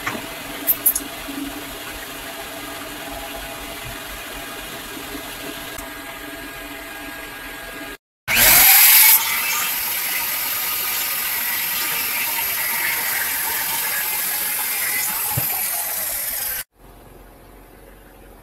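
A steady machinery hum with a few light clicks, then an electric jigsaw starts up, spins up quickly and runs steadily for about eight seconds as it cuts a wooden plank, before cutting off suddenly.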